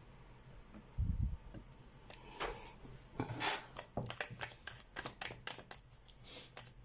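A low dull thump about a second in, then a tarot deck being shuffled by hand: a quick run of short card slaps and riffles that come closer together in the second half.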